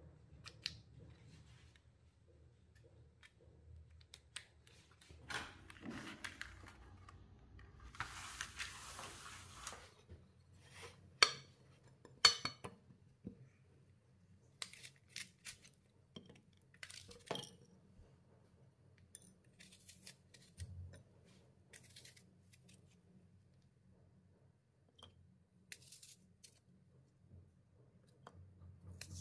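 Kitchen preparation sounds: scattered light clinks and taps of utensils against dishes, with a couple of seconds of rustling noise about a third of the way in and two sharp clinks soon after.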